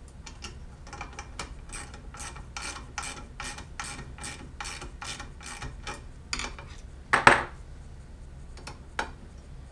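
Regular ratchet-like clicking, about four clicks a second, from a small hand tool working the drive-belt fastening at the end of an X-Carve CNC router's aluminium Y-axis rail as the belt is secured and tensioned. The clicking stops after about six seconds, and a single louder clack follows about a second later.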